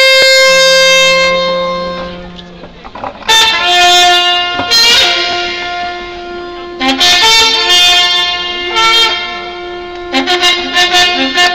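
Two long wooden shepherd's horns (Slovak pastierske rohy) played together. They sound long held notes, with quick runs of short repeated notes near the start and again near the end, and a softer stretch about two seconds in.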